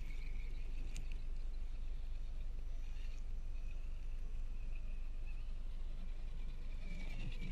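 Axial SCX10 scale RC crawlers driving over dry leaf litter: the small electric motors and geartrains give a thin high whine that swells as each truck passes close, over the rustle and crackle of tyres on leaves.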